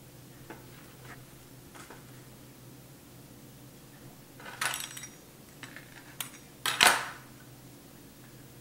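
Metal bakeware clattering on a counter: a baking sheet and pan being handled, with a few light clicks and then a run of sharper clatters in the second half, the loudest about seven seconds in.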